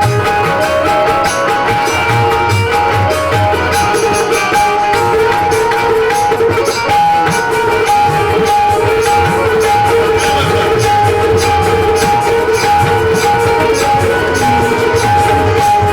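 Live instrumental music with a plucked string instrument, held tones and a steady beat of drums and hand percussion, and no singing.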